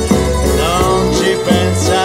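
Background music: a melody over a steady bass beat.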